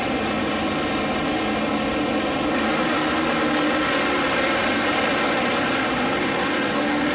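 Pack of supermoto motorcycles running together, a dense, steady din of many engines at once that gets brighter about two and a half seconds in.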